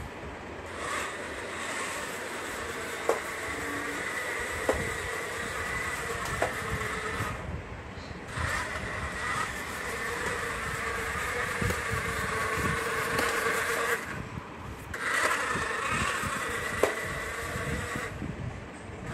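Homemade Arduino floor-cleaning robot running: its stepper motors, which turn the brushes, and its DC drive motors give a steady whine with a high tone and a lower hum. The whine cuts out briefly twice, and a few sharp clicks sound over it.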